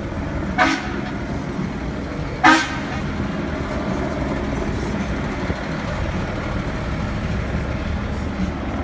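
A vehicle horn toots twice, briefly, about two seconds apart, the second toot louder. Under it runs the steady low rumble of a box truck's engine as the truck pulls away.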